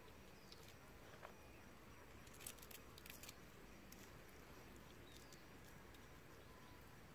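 Near silence, with faint crackles and clicks of a grilled tiger prawn's shell being peeled apart by hand, a short cluster of them about two and a half to three seconds in.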